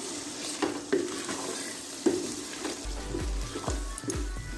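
Masala sizzling in an aluminium pot while a wooden spoon stirs it, with irregular short scrapes of the spoon against the pot.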